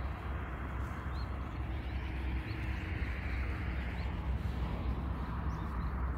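Wind buffeting the microphone with a steady low rumble, over a broad outdoor noise that swells and fades over a few seconds, with a few faint short high chirps.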